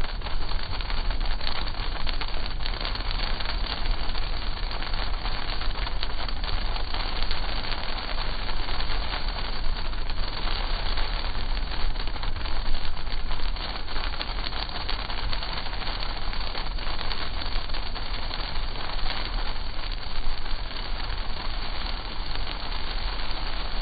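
Heavy sleet pellets hitting a car's windshield and body: a dense crackle of many small, sharp hits over the car's low, steady rumble.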